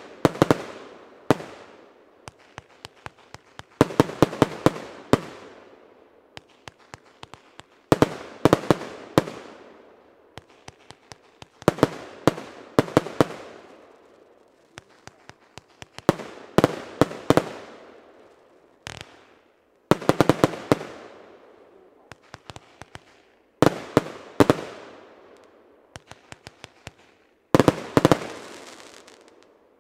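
25 mm Evolution Firework NOVA compound firework cake firing shot after shot. A rapid volley of sharp reports comes about every four seconds, each volley fading out, with scattered single pops in between.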